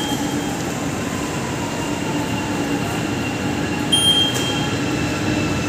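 Steady hum of a metro station concourse, and about four seconds in a short, high electronic beep from a QR-code fare gate as a ticket is scanned, followed by a faint click.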